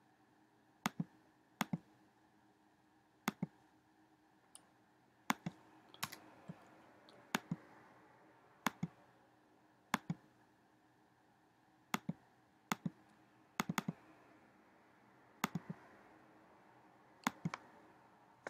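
Computer mouse button clicking: about a dozen sharp clicks at irregular intervals, many as quick double clicks of press and release, while menus and chart options are chosen.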